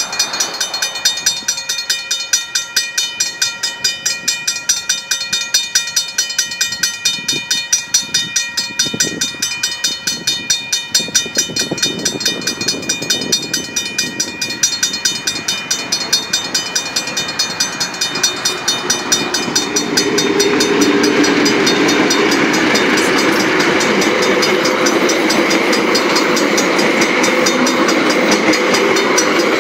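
Mechanical level-crossing bells ringing with fast, even strokes as a train hauled by DG and DI class diesel-electric locomotives approaches. From about two-thirds of the way through, the train passes over the crossing and the rumble of locomotives and wheels on the rails grows loud, with the bells still ringing.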